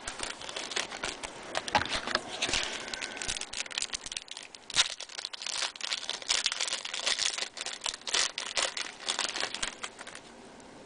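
Trading cards and their pack wrappers being handled: quick crinkling, rustling and flicking as the cards are shuffled through, easing off about ten seconds in.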